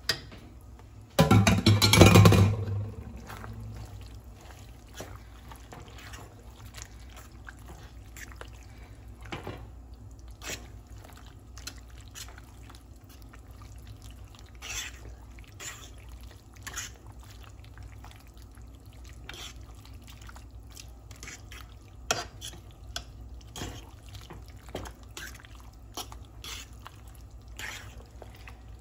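Shrimp scraped from a bowl into a pan of thick, cheesy penne in sauce, loudest for a second or so about a second in, then a spoon stirring and folding the sticky pasta with short scattered clicks and scrapes.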